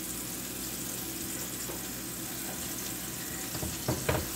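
Strip steaks sizzling steadily in hot oil in a skillet, with a few sharp knocks near the end as the steaks are moved in the pan.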